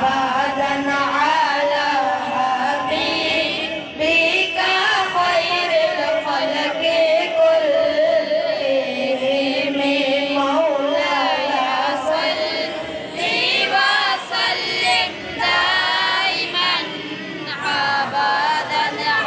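Devotional singing: a slow, melismatic chant with long held notes that waver in pitch.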